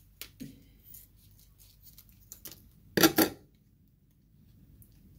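Scissors snipping open a plastic boba sachet with a few small, sharp cuts and crinkles. About three seconds in come two loud, sharp clacks close together, the loudest sounds.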